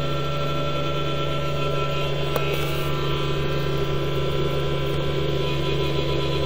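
Green Fuel 2000 W 12 V-to-120 V power inverter running under load, with a steady electrical hum and the drone of its cooling fans.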